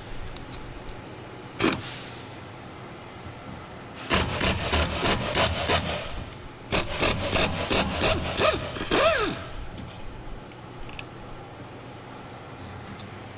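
Hand ratchet turning a 14 mm socket on a swivel-and-extension setup to loosen a bolt, about four short rasping strokes a second in two runs of a couple of seconds each, with a single click before them.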